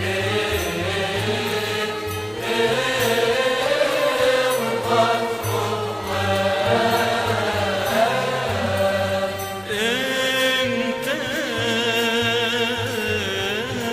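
Chanted religious hymn: voices sing long, winding lines over low held notes, and about ten seconds in a higher voice with a fast wavering vibrato comes in.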